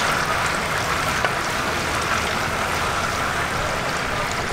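Hot oil in a large deep fryer sizzling steadily around battered chicken pieces, with small scattered crackles.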